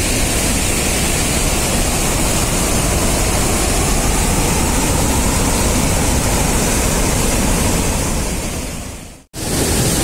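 Water pouring from a dam's open shutters down its stone spillway: a loud, steady rush of water. It fades out briefly about nine seconds in and returns at once.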